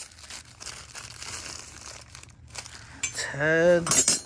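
Rummaging through a box of solid brass belt buckles: crinkling of packaging with light clinks of the metal buckles.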